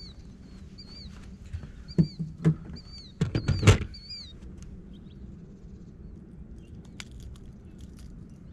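A small bird repeats a short, high, arched chirp about twice a second, stopping a little over four seconds in. Around two seconds in come a few knocks, then a louder rattling clatter as a small striped bass is handled and unhooked on the boat deck. A single sharp click follows near the end.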